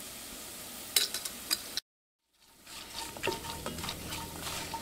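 Ginger, coconut and chilli powder sizzling in hot oil in an enamelled cast-iron pot while a spoon stirs them, clicking and scraping against the pot. The sound cuts out completely for about half a second a little before the middle, and the sizzling is louder after that.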